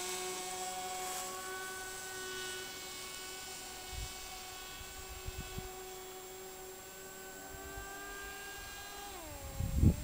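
Electric motor and pusher propeller of an F-27C Stryker RC foam flying-wing jet whining steadily in the air at a distance, the pitch creeping up and then falling sharply near the end as the throttle comes back. A few low wind thumps hit the microphone, with a heavier gust at the very end.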